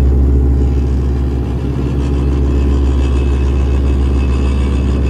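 Small ride-on roller's diesel engine running steadily as the roller drives over a gravel base, with a strong, deep hum. A faint high whine joins about three seconds in.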